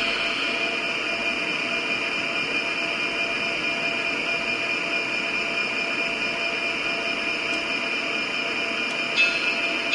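MRC sound decoder in an HO-scale model diesel locomotive, playing a steady diesel engine sound through its small speaker while the model stands still. Near the end the sound changes, with a few sharper peaks.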